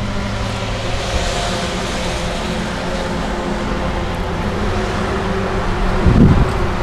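A vehicle engine running steadily with a low hum, over general outdoor noise. A short low thump comes about six seconds in.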